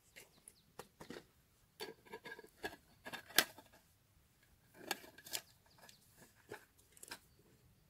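Fabric mesh stuff sack rustling and crinkling as a small lidded metal cooking pot is worked into it, with light knocks of the pot, the sharpest about three and a half seconds in.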